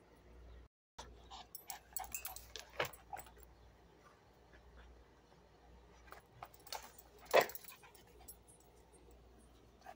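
A pug in a plastic cone collar moving about close by: scattered clicks and light rattling, a sharp knock about three seconds in, and a louder short, sharp sound a little past seven seconds.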